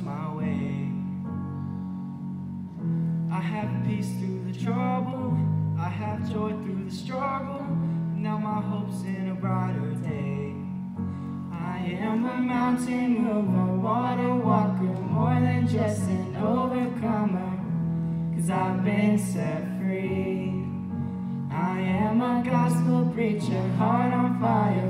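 A girl singing a song into a microphone over guitar accompaniment, the low accompanying notes changing every second or two.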